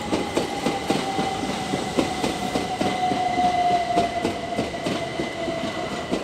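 Southeastern Class 375 Electrostar electric multiple unit passing close below, its wheels clicking in quick irregular succession over rail joints and pointwork. A whine from the train's traction equipment falls slowly in pitch, with a faint high steady tone above it.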